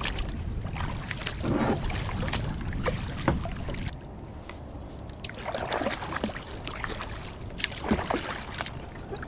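Kayak paddle strokes splashing in river water, three louder ones a few seconds apart, with small drips and water slapping the plastic kayak hull over a steady low rumble.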